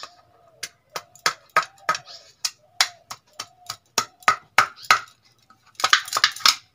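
A pestle pounding roasted crab with garlic and chilli in a steel bowl, a stage in making crab chutney. Sharp knocks come about three a second, then a quicker run of rapid strikes near the end.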